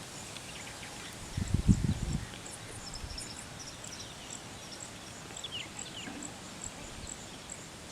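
Rural outdoor ambience, with small birds chirping and a high insect chirp repeating about twice a second from the middle on. A brief, loud low rumble comes about one and a half seconds in.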